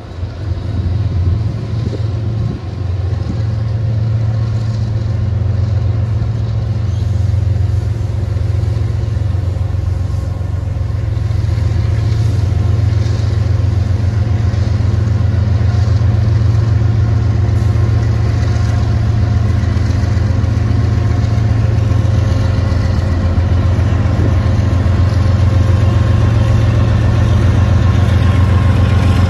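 Diesel locomotive engine running close by: a loud, steady low drone that swells over the first second or two and then holds.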